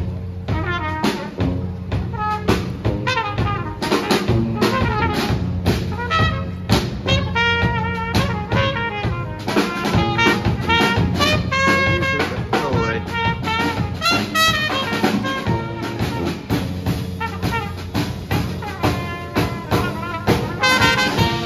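Live jazz band playing: trumpet, trombone and saxophones over a drum kit keeping a steady beat.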